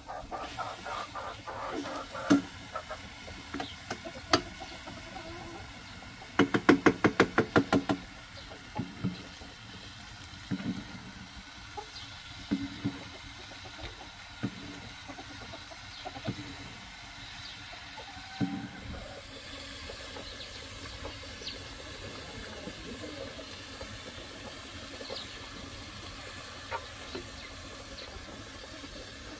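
Metal cooking spoons knocking and scraping against a frying pan and a pot over a wood fire, with a quick run of about ten knocks about six seconds in. A low steady hiss of frying and boiling runs underneath.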